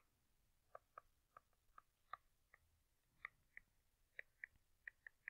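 Near silence broken by about a dozen faint, irregular light ticks: a stylus tapping on a pen tablet while handwriting.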